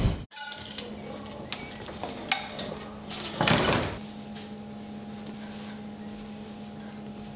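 Light knocks and a brief rustling swish about three and a half seconds in, from someone moving about a small room, over a steady low hum.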